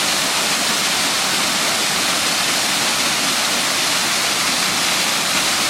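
Waterfall on a creek, a steady rush of falling water pouring into a swimming hole.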